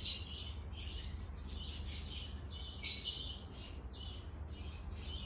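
Budgerigars chattering with steady, rapid chirping, with two louder calls standing out, one at the start and one about three seconds in.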